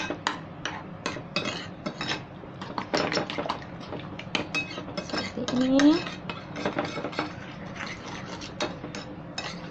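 Metal fork beating eggs in a ceramic bowl: rapid, irregular clinks of the fork against the bowl, with one short rising tone about halfway through.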